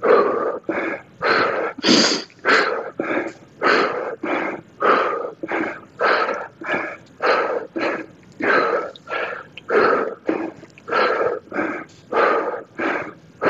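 A man breathing hard under exertion during dumbbell rows, in quick, regular, loud breaths about one and a half a second, close to the microphone.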